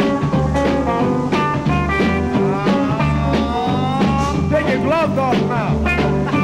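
Rockabilly-style music: guitar lines with bent notes over a steady, repeating bass beat.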